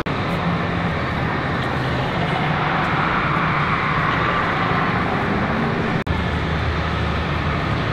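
Steady outdoor fairground din: a dense wash of background noise over a low engine-like hum, broken by a sudden brief dropout about six seconds in.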